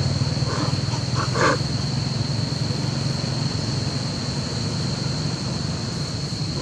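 A few short macaque calls about a second in, over a steady low hum and a constant high-pitched whine.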